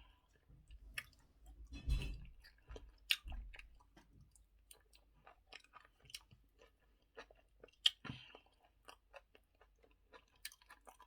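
A person chewing eba and okra soup close to the microphone: many short, irregular mouth clicks and smacks, with a few louder ones.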